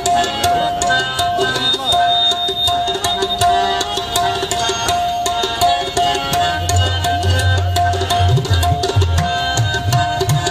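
Qawwali instrumental accompaniment: tabla playing a steady rhythm under a held harmonium note, with deeper bass strokes coming in about six seconds in.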